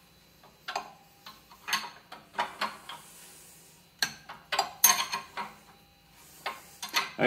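Steel combination wrench clinking on the bolt head of a bearing puller's forcing screw, about a dozen short irregular metal clicks as it is turned stroke by stroke and refitted. The puller is drawing the top spindle bearing up off a drill press spindle.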